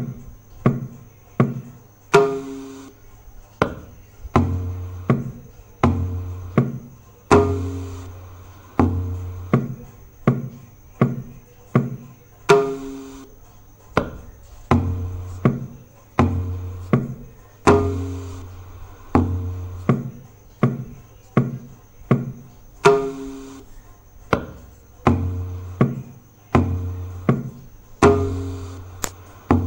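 Tabla playing the 14-beat Dhamar taal as a repeating loop, one full cycle about every five seconds. Sharp strokes on the small right-hand drum mix with deep, ringing strokes on the bass drum.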